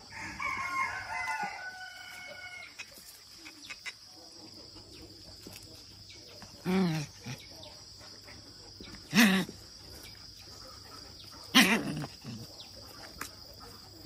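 A rooster crows once in the first few seconds. Then three short, loud calls come about two and a half seconds apart, over a steady high-pitched hum.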